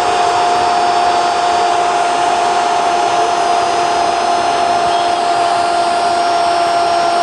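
A Spanish-language football commentator's long held goal cry, one unbroken shouted note sagging slightly in pitch, over constant stadium crowd noise.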